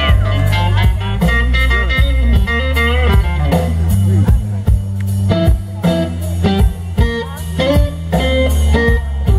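Live blues band: an amplified electric guitar plays a lead solo full of string bends over bass guitar and drums in a slow blues.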